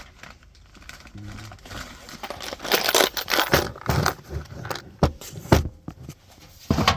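Hand work on a furnace blower assembly: an irregular run of knocks, clicks and scrapes as metal parts are handled, busiest from about two seconds in.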